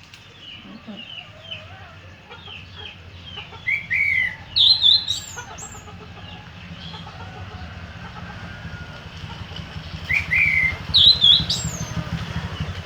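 Orange-headed thrush (anis merah) singing: a run of quick chirps, then loud whistled phrases about four seconds in and again near the end. A low steady hum sets in about halfway through.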